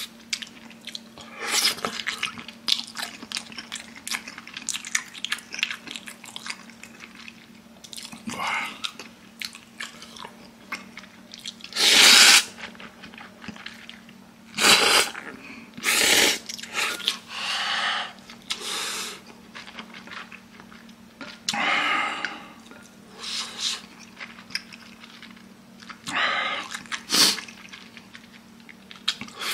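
Close-up eating sounds: a man chewing and slurping spicy instant ramen noodles and broth, in a string of short noisy bursts with the loudest slurps around the middle. A faint steady low hum runs underneath.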